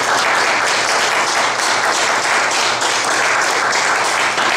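Audience applauding: dense, steady clapping from a roomful of people, starting just as the speech ends.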